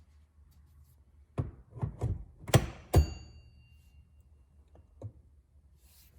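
A quick run of knocks and thunks from handling the steering wheel and its quick-release hub, ending in a sharp metallic clack that rings briefly; a single faint knock follows about two seconds later.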